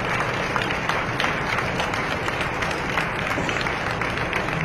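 Spectators applauding steadily, a dense patter of many hands clapping over general crowd noise.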